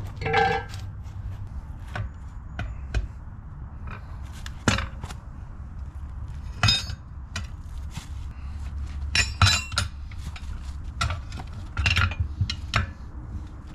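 Tire spoons clinking and knocking against a wheel rim while a tire is levered off it: irregular metal clinks, a few with a short ring, and a cluster of them near the end.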